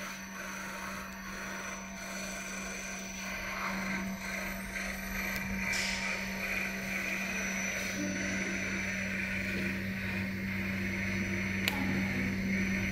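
Steady electrical hum from a desktop 5-axis CNC milling machine and its control equipment, with a single sharp click near the end.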